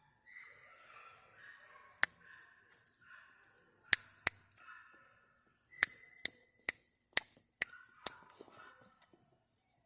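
A series of sharp finger snaps, about nine, given as commands to a dog. They are single at first, then come roughly every half second in the second half.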